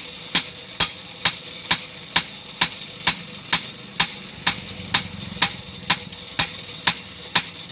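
A hand hammer striking a broad steel chopping blade on a steel block anvil: steady, even blows about two a second, each with a bright metallic ring.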